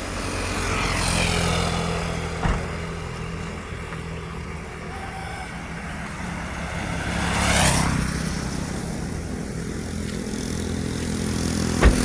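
A motor vehicle engine running steadily, with a whoosh that swells and fades about two-thirds of the way through, and a couple of short knocks.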